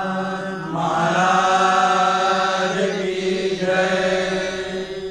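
A group of men chanting together in unison on one long held note, with the vowel sound shifting slowly over it; it grows louder about a second in.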